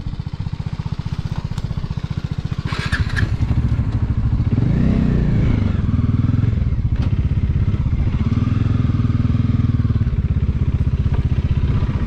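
Motorcycle engine running at low revs close by, a steady fast pulsing that gets louder and busier about four seconds in. A couple of sharp clicks sound over it.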